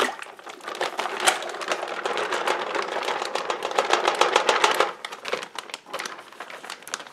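A plastic zip-lock freezer bag crinkling as marinated chicken pieces and sauce are poured out of it into a stainless steel pot insert. There is a dense run of crackling for about five seconds, then sparser crackles.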